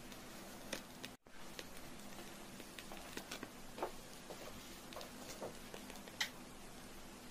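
Burning candle: scattered faint crackles and ticks from the wick over a steady low hiss, with one sharper crack about six seconds in. The sound drops out for a moment about a second in.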